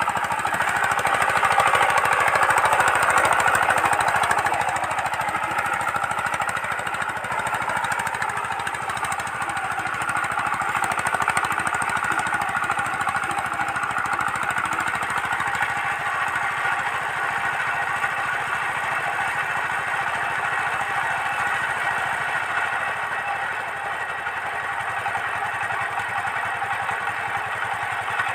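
Single-cylinder diesel engine of a two-wheel power tiller running steadily with a rapid, even firing beat, working under load as it drags a wooden leveling ladder over tilled soil. It is loudest in the first few seconds.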